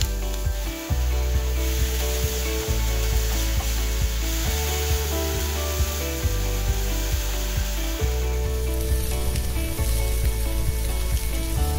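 Chopped chicken and bacon sizzling in a frying pan as they are stirred, with rice going into a seasoned pan near the end. Background music with sustained low notes plays over the sizzle.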